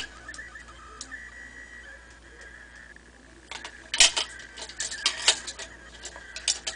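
Handling noise from a small RC truck chassis being turned over by hand: light plastic clicks and taps, sparse at first, then a quick cluster of clicks from about four seconds in. A faint steady high tone sits underneath.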